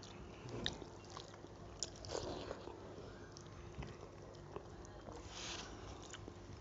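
Quiet chewing and mouth sounds of someone eating rice and curry by hand, with small clicks and scrapes of fingers mixing the food on a metal plate.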